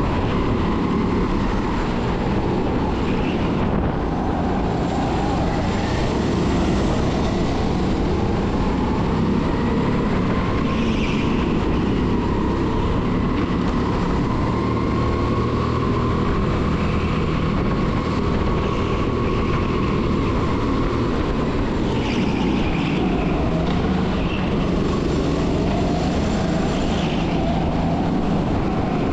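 A 270cc rental kart's engine running hard at racing speed, heard from onboard the kart, its pitch rising and falling slowly as the kart speeds up and slows through the corners.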